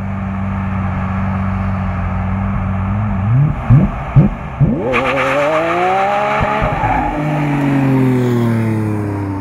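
Lamborghini Aventador LP700-4's V12 idling, then blipped sharply three times. It then accelerates hard, its note climbing steeply with a harsh rasp, and falls in pitch as the car drives off.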